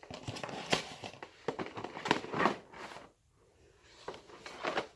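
Packaging being handled: irregular rustling of a box and its inserts with a few sharp clicks, pausing briefly about three seconds in.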